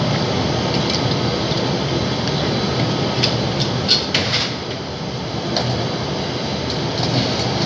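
Commercial kitchen extraction hood running with a steady rushing noise, with a few sharp metal clinks from tongs and a tray at a Josper charcoal oven about three to four and a half seconds in.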